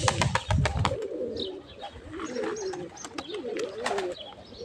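Domestic pigeons cooing, a repeated low wavering call, with a few higher chirps. In the first second there is a fast clatter of about nine strokes a second, like pigeon wings flapping.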